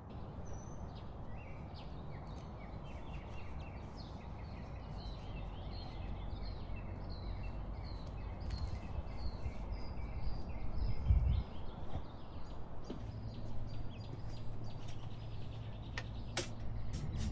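Outdoor ambience with a steady background rumble and small birds chirping repeatedly in quick short notes, fading out about halfway through. A low thump about eleven seconds in and a few sharp clicks near the end.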